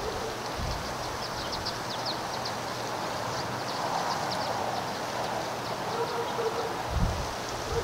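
Outdoor ambience: a steady background hiss with small birds chirping in a quick run of short, high notes through the first half, and low wind rumbles on the microphone near the end.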